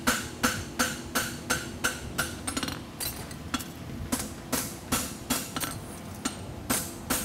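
Hand hammer striking a hot steel horseshoe on an anvil in a steady run of blows, about three a second, a little softer for a second or so midway. The blows are blending the shoe's toe, from the toe nail hole to the centre of the clip.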